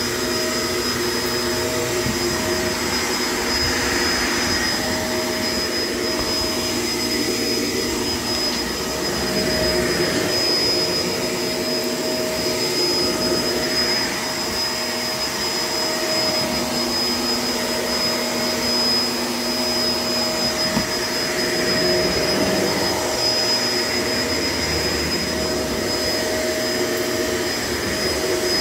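Shark LA702 Lift-Away upright vacuum cleaner running steadily, a continuous rushing sound with a high, steady motor whine. Its airflow sound swells and eases every few seconds.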